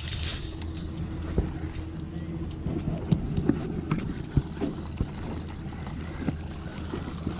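Irregular knocks and rubbing from a camera being handled and moved, over a steady low hum.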